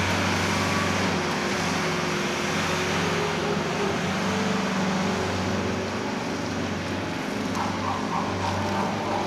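Skid-steer loader's engine running steadily under work, a low even hum.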